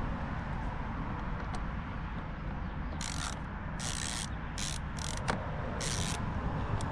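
Hand ratchet clicking in about five short bursts in the second half, backing out a screw holding the car's door trim panel.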